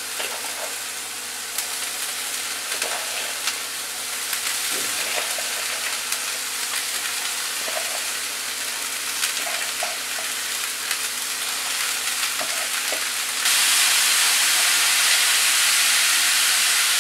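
Shredded cabbage and carrots sizzling in hot oil in a frying pan as they are stirred, with scattered small clicks. The sizzle grows louder and steps up suddenly about thirteen seconds in.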